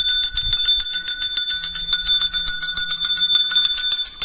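Small temple bells rung rapidly and without pause, a fast run of metallic strikes with a steady high ringing.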